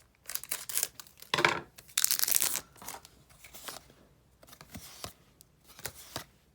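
A trading card booster pack wrapper being torn open in a few loud, crinkly rips, followed by softer clicks and flicks as the cards are handled.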